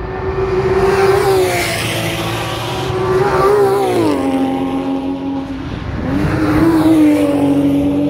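Race car engines at speed passing along the circuit. The engine note holds steady, then glides down in pitch about four seconds in as a car goes by, and a second engine note comes up about two seconds later.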